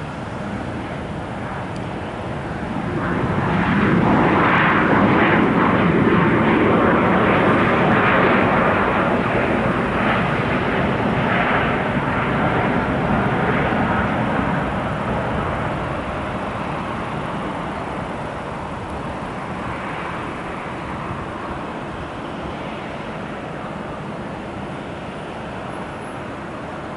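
Jet airliner's engines heard passing: the noise swells about three seconds in, stays loud for about ten seconds, then fades slowly.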